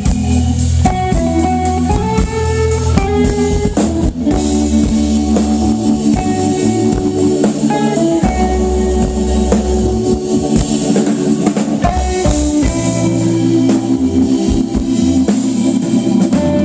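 Live band playing amplified electric guitar over a drum kit, with sustained notes that change every second or so.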